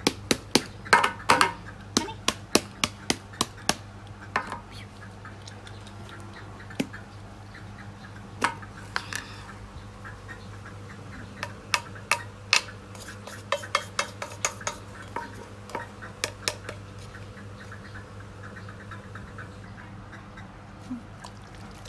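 A scoop tapping and scraping inside a metal tin of powdered formula milk as powder is scooped out for a baby bottle: runs of sharp clicks and taps, busiest in the first few seconds and again in the middle, then stopping.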